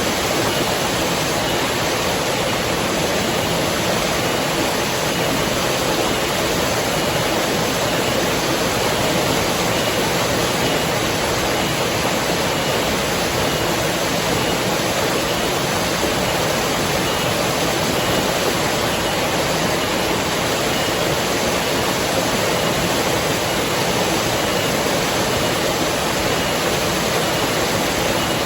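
River water flowing with a steady, even rush that does not change.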